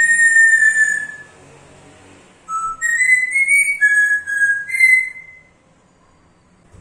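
African grey parrot whistling: one long whistle that rises slightly and then falls away. After a short pause comes a quick tune of about eight short notes stepping up and down, ending on a longer note.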